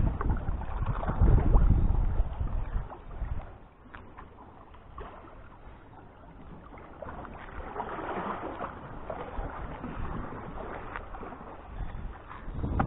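Wind rumbling on the microphone during a cast, loud for the first three seconds, then dropping to a quieter steady hiss with faint scattered clicks.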